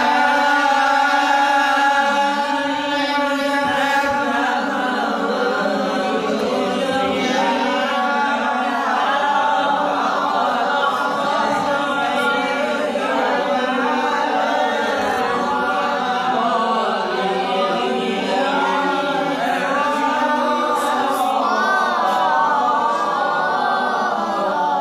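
A man chanting Quran recitation in maqam Hijaz, unaccompanied. It is one long melismatic line without a break, the pitch sliding and turning through ornaments.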